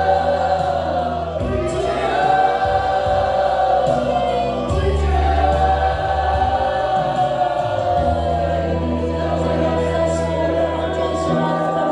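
Many voices crying out at once in loud united group prayer, with the pastor's voice amplified through a microphone, over steady keyboard music.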